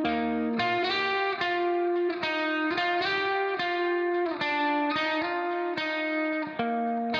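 Instrumental background music: a melody of plucked notes, a new one about every half second, each ringing on, with some notes sliding in pitch.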